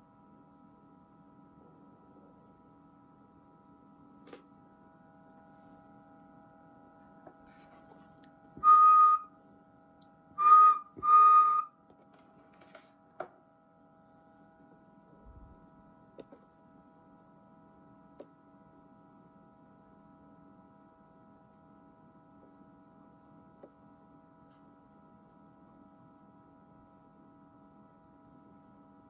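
Three short, loud, high whistle-like tones, each about half a second, come in quick succession about a third of the way in. Faint steady tones and a low hum run underneath, with a few small clicks.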